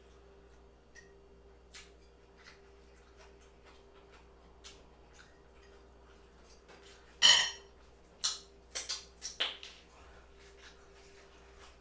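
Eating sounds: a metal fork picking at a plate of bacon ranch fries, with small scattered clicks of cutlery and chewing. About seven seconds in comes a loud clatter of fork on plate, then a quick run of sharper clicks.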